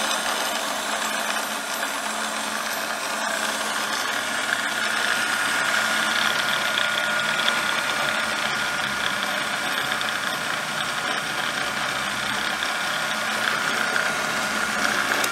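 The 1/3 hp electric motor of a Cuttermaster MG-30 end mill grinder running unloaded with no grinding wheel mounted: a steady motor hum with a thin, steady whine over it.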